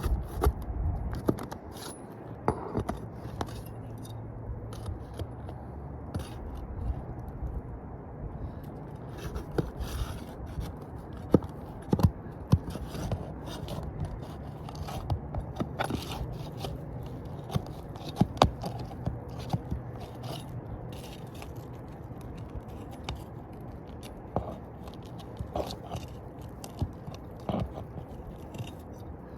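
An asphalt roof shingle being unsealed and pried loose by hand: irregular scraping, with scattered sharp clicks and crackles of the shingle tearing free. The shingle is being removed to show whether it can be taken out for repair.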